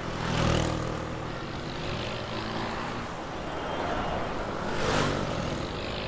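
Road traffic: vehicles passing by, one about half a second in and another near the end, over a steady low rumble.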